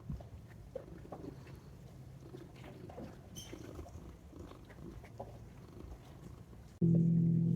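Domestic cat purring close by, with a few faint ticks. Near the end a louder, steady low hum starts suddenly.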